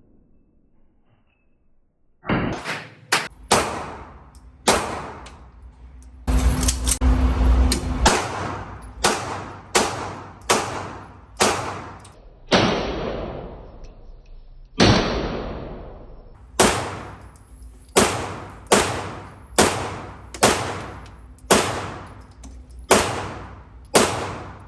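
Semi-automatic handgun fire: about two dozen shots beginning about two seconds in, each ringing out briefly after the crack. The shots come roughly one every half second to a second, with a quick run of them around six to eight seconds in.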